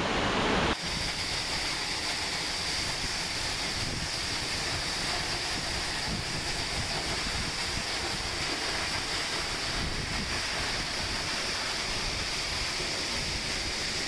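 Jogini Falls' multi-step waterfall rushing steadily at close range, with wind and blown spray buffeting the microphone. The sound changes abruptly less than a second in, then holds even.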